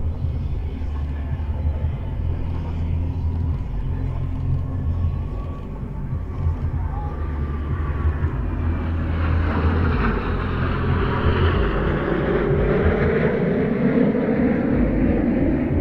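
Jet noise from a five-ship formation of Kawasaki T-4 twin-turbofan trainers passing overhead. It swells from about nine seconds in, and its pitch falls over the last few seconds as the formation goes by.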